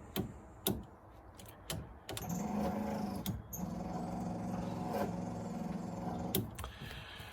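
Triumph TR7 windscreen wiper motor switched on with a few clicks of the switch, running with a steady hum for about four seconds, then stopping abruptly with a click. The wipers halt wherever they are switched off instead of parking: the self-park circuit is not working, which the owner puts down to the disconnected brown-and-green wire.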